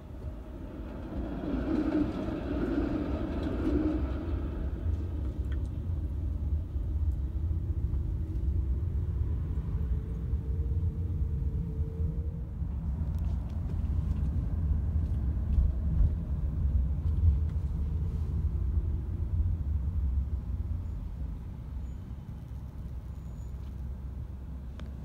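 Low, steady rumble of a road vehicle in motion, with faint tones that rise and fall partway through; the rumble eases near the end.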